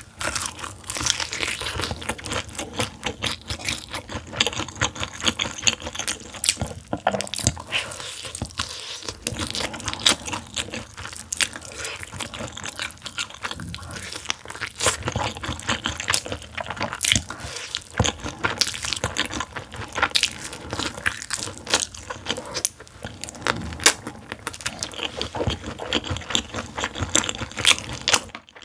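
Close-miked crunching and chewing of crispy, sauce-coated fried chicken: a dense, continuous run of crackly bites.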